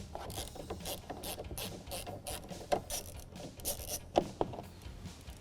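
Hand ratchet with a 10mm socket clicking in irregular runs as it loosens a door handle's mounting bolt.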